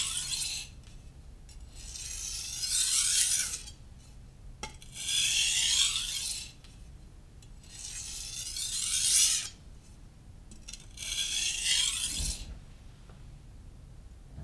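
Knife blade being stroked along a Naniwa Professional (Chosera) 600-grit whetstone: about five slow, hissing, gritty sharpening strokes, each a second or two long, with short pauses between them.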